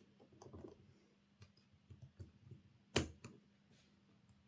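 Small model-locomotive parts being handled and fitted by hand: scattered light clicks and taps, with one sharper click about three seconds in.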